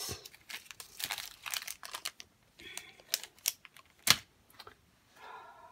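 Small plastic clicks, taps and rustles of diamond-painting drills and their little plastic bags being handled, uneven in spacing, with one sharper tap about four seconds in.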